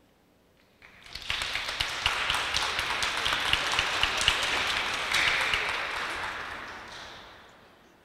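Audience applauding, starting about a second in and fading out near the end.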